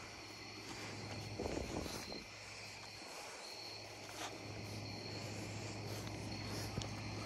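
Crickets chirping in short high trills over a steady low hum, with faint scattered clicks. A brief rustle about one and a half seconds in, from the puppies being handled.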